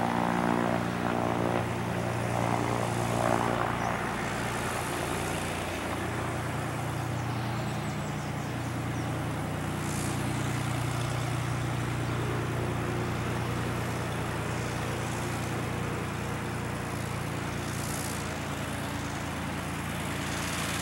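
Cessna Corvalis LC42-550FG's six-cylinder Continental IO-550 piston engine and propeller running at low taxi power as the plane taxis, a steady engine hum whose pitch shifts slightly about five seconds in.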